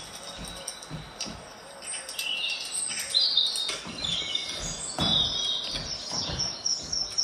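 Small birds chirping and calling in quick, overlapping phrases, most likely the birdsong of a cat-entertainment video playing through an Amazon Echo Show's speaker. A couple of soft knocks come midway.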